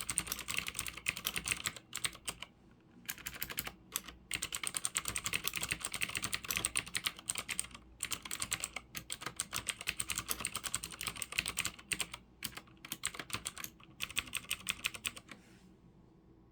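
Cherry G80-3000 mechanical keyboard with clicky Cherry MX Blue switches being typed on fast: dense runs of rapid key clicks broken by short pauses. The typing stops near the end.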